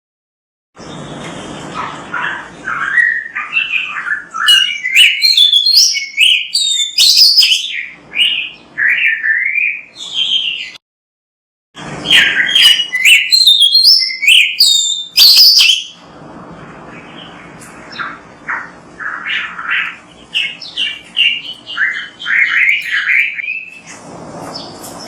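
Oriental magpie-robin (kacer) singing a rapid, varied song of whistles, trills and chattering notes. The song stops dead twice, at the very start and about eleven seconds in, for about a second of total silence where recordings are spliced together.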